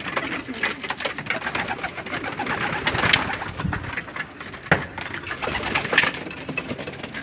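Racing pigeons cooing in a loft, with wing flaps and short sharp clatters as birds flutter about at feeding time; the loudest clatters come about four and a half and six seconds in.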